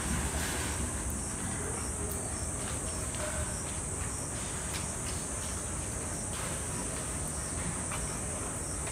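Steady high-pitched insect drone, unbroken throughout, with a few faint soft clicks.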